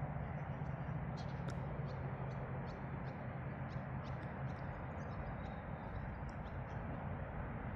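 Many short, high chirps from small birds, scattered irregularly over a steady low rumble of outdoor background noise.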